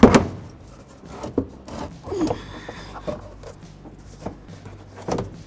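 Plastic radiator fan shroud being worked down into place, knocking and scraping against the radiator and engine parts: one sharp knock at the start, then several smaller knocks and rubs.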